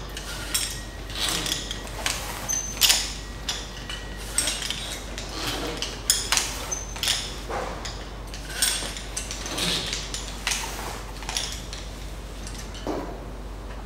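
Metal karabiners and rope-access hardware clinking and clicking irregularly as lanyards and devices are handled and clipped to overhead anchors.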